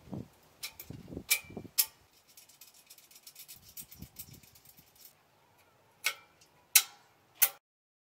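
Metal clicks and knocks from a hand handling a steel square-tube frame: a few dull knocks, then a fast run of light ticks, then three sharp clicks about two-thirds of a second apart near the end.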